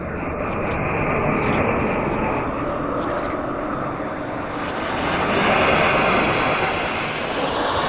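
Designed glitch-flutter swoosh sound effect: a dense, fluttering rush of noise that swells and ebbs, dipping about halfway and turning brighter and hissier near the end.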